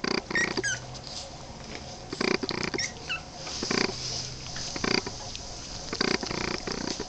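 Three-week-old Boston Terrier puppies vocalizing as they squirm over each other in a pile: short low grunts every second or so, with a few thin high squeaks in the first second and again around three seconds in.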